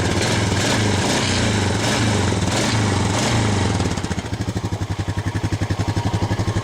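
Honda Foreman 500 ATV's single-cylinder four-stroke engine revved up several times, then settling back to a steady idle about four seconds in. It runs and takes throttle after its rodent-chewed wiring harness was repaired.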